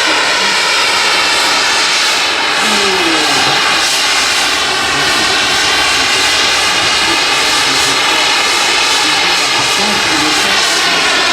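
Dassault Flamant twin-engined piston transport flying past, its engines running loud and steady, the engine note shifting slightly in pitch as it goes by.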